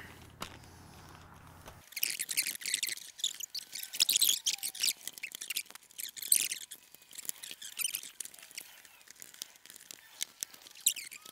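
Plastic being handled, crinkling and crackling with many quick light clicks, starting abruptly about two seconds in; before that only a faint low hum.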